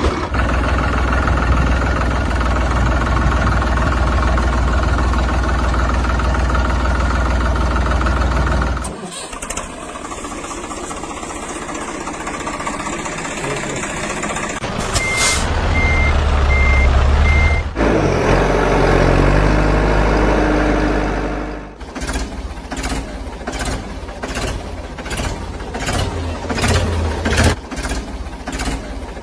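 A run of heavy-vehicle engine sounds: a steady low engine rumble, a reversing alarm beeping over the engine about halfway through, and a rapid knocking engine rhythm near the end.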